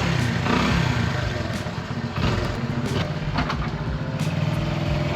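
1990 Honda C90's small single-cylinder four-stroke engine running at a steady idle, just after starting.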